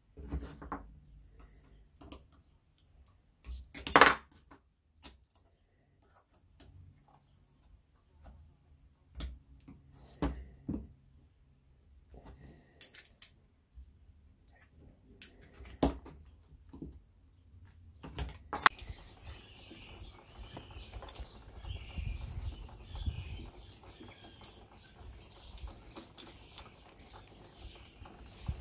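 Scattered metal clicks and knocks from a Honda CB750 front brake master cylinder and its lever being handled as the lever is fitted and its pivot bolt tightened, the loudest clack about four seconds in. About two-thirds of the way through the clicks stop and a steady background hiss with faint chirps takes over.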